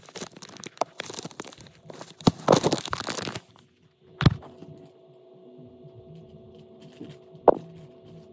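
Handling noise as the recording device is moved and covered: dense rustling and crackling for the first three seconds or so, then a sharp click. A faint steady hum follows, with another sharp click near the end.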